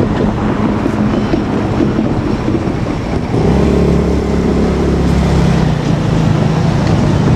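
Electric train, the JR Kyushu 787 series, running past at close range with a continuous rumble of wheels on rail. A steady hum of several tones from its motors joins about three and a half seconds in and fades near the end.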